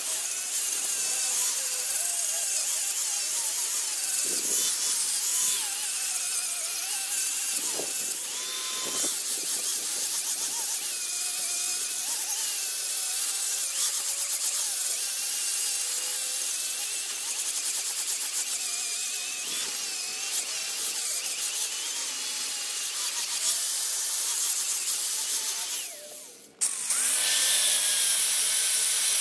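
Angle grinder with a 40-grit flap disc sanding a weathered white mahogany fence post; its motor whine wavers as the disc bites into the wood. Near the end the sound drops out briefly, then comes back with a rising whine.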